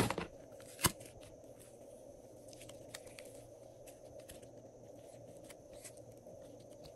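Glossy slime being kneaded and stretched by hand, giving a few sticky clicks and pops, a sharp one about a second in, then sparse faint crackles over a steady background hum.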